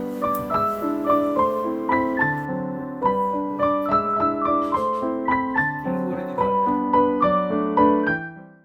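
Background piano music: a gentle melody of short notes over held lower chords, fading out near the end.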